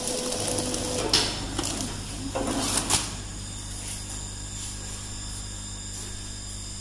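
YX-PF70 granule and powder filling machine running: a steady motor hum starts about half a second in, with two short, louder bursts of noise about one second and two to three seconds in.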